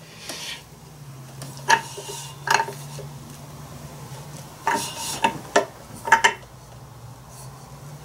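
Light metallic clinks and knocks of tools and parts being handled on a workbench: scattered single strikes, bunched together about five to six seconds in, over a faint steady low hum.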